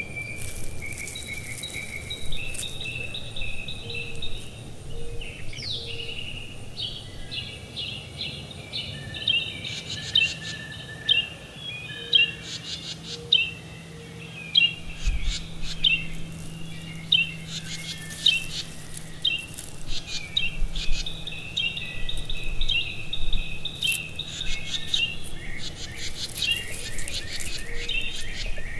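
Birds chirping and calling, with many short notes repeated in quick series throughout. A faint steady low hum sits underneath for much of the time.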